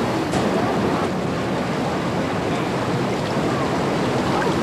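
Fast-flowing river in spring runoff, a steady rushing of water.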